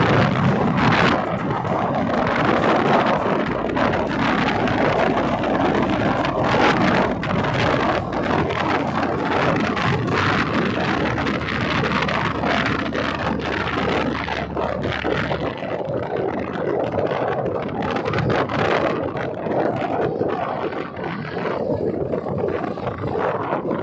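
Steady wind rush over the microphone of a moving motorcycle, with its engine and road noise underneath.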